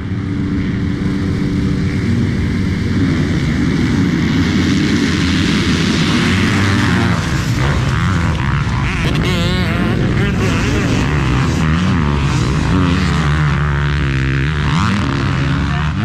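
A pack of motocross dirt bikes at a race start: many engines held at high revs together, then accelerating, getting louder and rising and falling in pitch through the gears as the field comes through the first turn.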